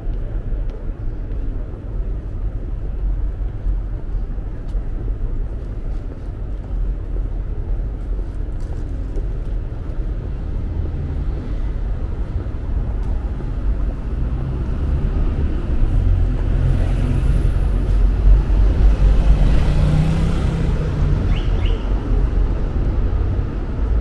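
City street ambience: a steady low rumble of road traffic, growing louder about two-thirds of the way through.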